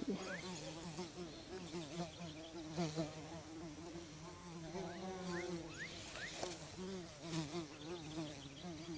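A flying insect, a fly or bee, buzzing close to the microphone, its pitch wavering up and down as it moves. A few short rising chirps sound about halfway through.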